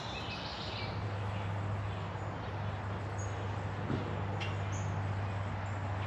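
Creek water running steadily through a small riffle, under a constant low hum. Birds chirp in the first second, with a couple of short high chirps later and two light clicks about four seconds in.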